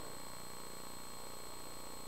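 Quiet room tone: a steady faint hiss with a few thin, high, unchanging tones, and no other sound.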